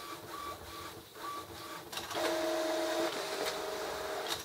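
Epson XP-605 inkjet all-in-one running a colour copy job. Its motors whine in short, repeated bursts, then switch to a louder, steady whine about two seconds in.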